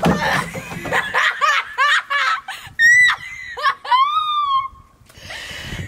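A girl shrieking and gasping in quick short cries from the shock of a bucket of ice water dumped over her, mixed with laughter; a shrill cry about three seconds in is followed by a long falling wail before it dies down.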